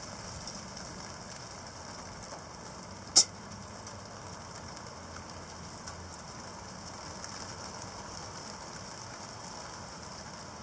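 Heavy rain from a convective shower falling steadily, with a single sharp click about three seconds in.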